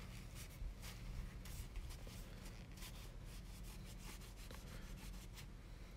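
Faint, irregular light scratching and rubbing sounds of hands working small painting materials on a desk, over a low steady hum.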